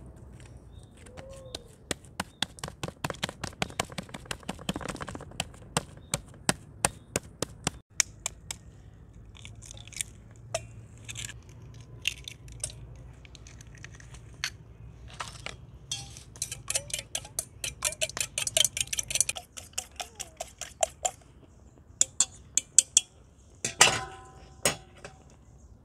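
Sharp taps and clinks of hands at a stainless steel bowl as an egg is cracked into it, with a fast run of clinks about two thirds of the way through. Near the end come a few louder metal clinks that ring on briefly.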